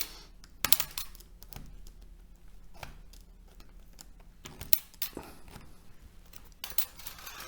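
Thin steel E and I transformer core laminations clinking against each other and the core as they are worked loose and drop out: a series of sharp, irregular metallic clicks, with a small cluster near the end.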